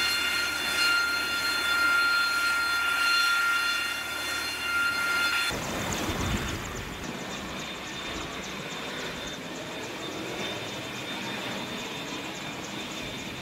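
An AV-8B Harrier II's Pegasus turbofan running on a carrier deck, a steady high whine of several tones over a rushing roar. About five seconds in it cuts abruptly to a broad, even rush of deck noise, with low wind buffeting on the microphone just after the cut.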